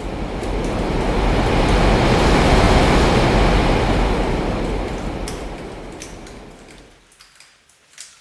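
Surf washing in against rocks and drawing back: a rush of noise that swells for about two seconds, peaks, then fades over the next four into a brief lull, with the next wave starting to build at the very end.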